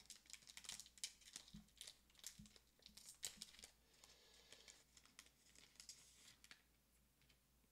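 Faint crinkling and rustling of a foil One Piece Card Game booster pack wrapper being handled, in quick irregular crackles that stop about six and a half seconds in.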